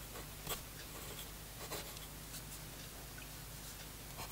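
Stainless-steel 1.1 mm stub nib of a TWSBI Go fountain pen scratching faintly across paper as a line is written, with a couple of light ticks.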